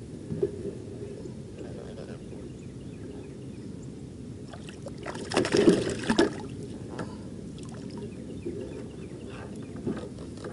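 A small catfish splashing at the surface as it is reeled up beside a kayak, one brief burst of splashing about five to six seconds in, over a steady low wash of water.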